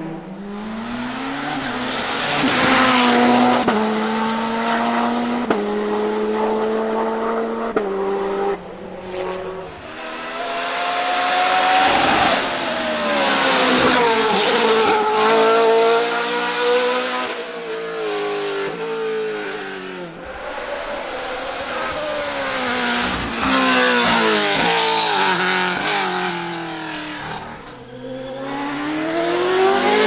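Hillclimb race cars at full throttle, passing close one after another. Each engine's note climbs and then drops in quick steps at the upshifts, and the sound swells as each car goes by and fades before the next one comes.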